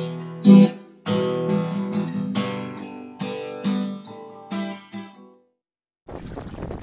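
Acoustic guitar music: a run of strummed and plucked chords, each ringing and dying away, ending about five seconds in. After a short gap of silence, wind noise on the microphone and water come in near the end.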